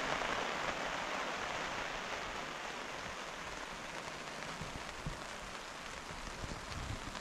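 Rain falling on a tarp overhead, heard from underneath: a dense, steady hiss of drops on the fabric that eases a little over the seconds.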